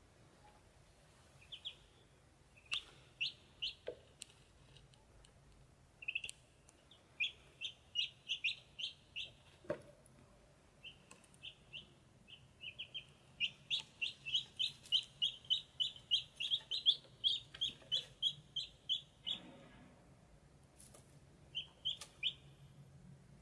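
Ducklings peeping: runs of short, high cheeps, about three or four a second, coming in several bouts, with the longest and loudest bout in the middle.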